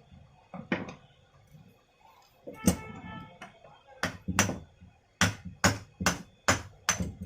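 Sharp knocks and taps on metal parts of a 5 kg electric chipping hammer being worked on. About ten knocks come irregularly, most of them in the second half at roughly two a second, and one knock a little before the middle rings briefly.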